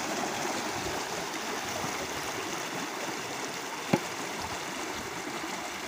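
Irrigation water gushing steadily through a brick channel outlet. A single sharp knock comes about four seconds in.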